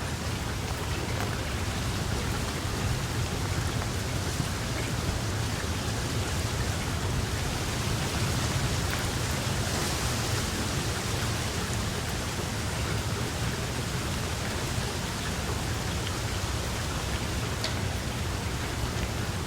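Steady rain falling, an even hiss with scattered drop ticks over a constant low rumble.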